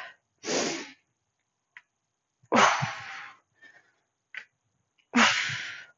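A woman's hard breaths through heavy kettlebell deadlift reps: three forceful breaths about two and a half seconds apart, each starting sharply and trailing off, with a couple of faint ticks between them.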